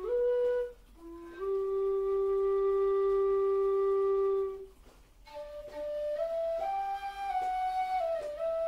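Low whistle, a long metal tin whistle, playing a slow melody: a short note at the start, then one long held note from about a second and a half to four and a half seconds in, a brief breath pause, and a phrase climbing to higher notes and easing back down near the end.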